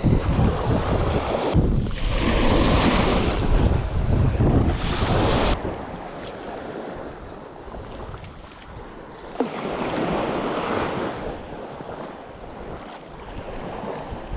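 Sea waves washing in surges, with wind buffeting the microphone; the wash is loudest over the first five seconds and swells again after about nine and a half seconds. A single sharp click sounds just before the second surge.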